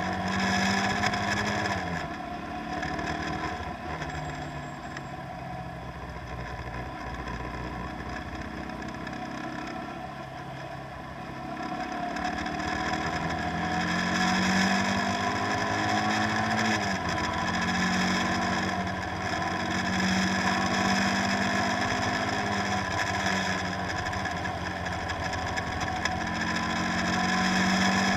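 Boat engine running, its pitch sliding down and up several times as the revs change, growing louder about halfway through.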